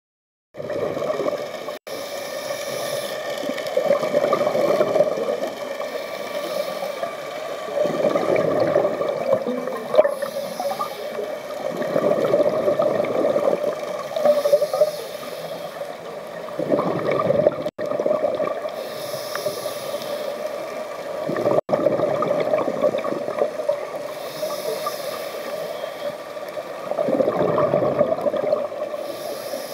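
Scuba diver breathing through a regulator underwater: a hiss on each inhale, then a swell of bubbling on each exhale, repeating every four seconds or so.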